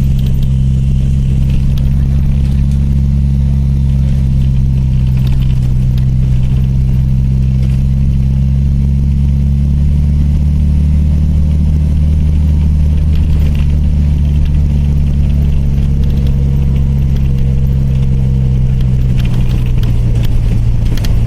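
Bus engine running steadily with a deep, even drone, heard from inside the bus, with light rattles now and then. The engine note shifts slightly about halfway through.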